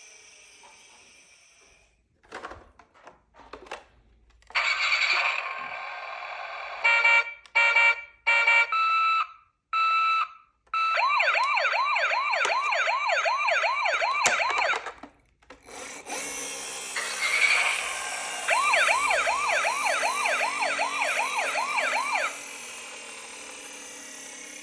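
Toy emergency vehicles' electronic sirens: a run of short beeps, then a fast yelping siren that sweeps up and down about three times a second. It stops and starts again a few seconds later.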